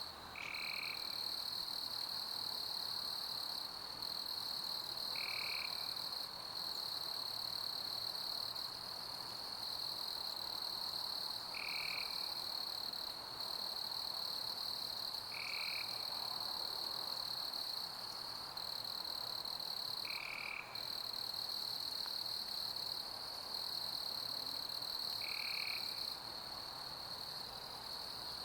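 Night insect chorus of crickets: a steady high-pitched trill with a few brief dips. A short, single-pitched call repeats every four to six seconds.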